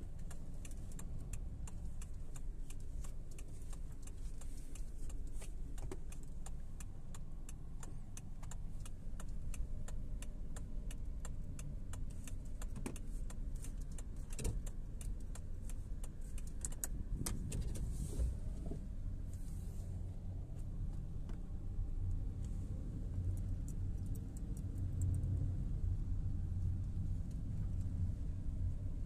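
Steady low engine and road noise heard from inside a car in heavy rain. Many sharp raindrop ticks strike the windscreen and roof, thickest in the first half.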